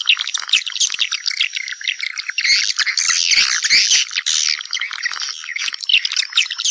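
A dense chorus of swiftlets twittering and chirping, many high calls overlapping without a break. These are the calls that draw other swiftlets back to nest.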